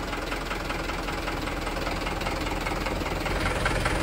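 Mitsubishi Canter truck's diesel engine running with a steady, rhythmic clatter, getting louder near the end.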